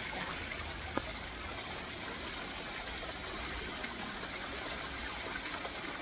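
Small plaza fountain's water jets splashing steadily into the basin, with one short click about a second in.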